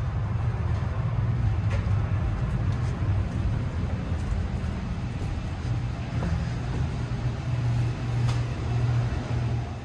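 Steady low rumble of airport machinery heard along a jet bridge while boarding an airliner, with a few faint clicks.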